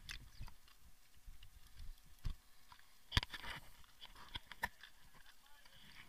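Faint, scattered knocks and rustles of handling noise as the camera is moved, with a sharper click about three seconds in.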